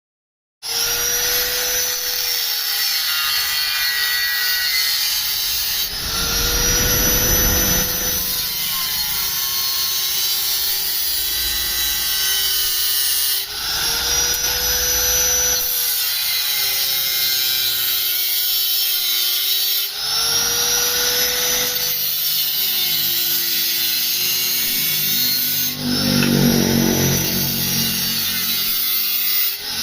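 Electric power tool running and working metal, its pitch sagging as it bears into the work. The sound breaks off and starts again abruptly every six seconds or so.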